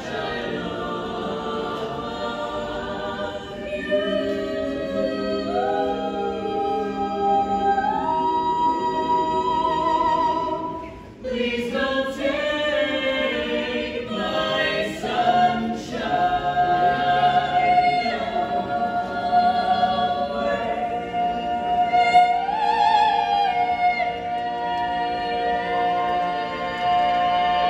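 Mixed a cappella vocal ensemble of men and women singing in close harmony, with long held chords. A brief break about eleven seconds in, then the singing resumes.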